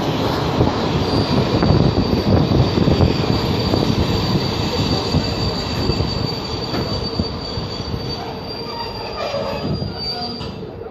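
Passenger train braking into a station: wheels rumbling on the rails with a steady high-pitched squeal. The sound fades over the last few seconds as the train slows to a stop.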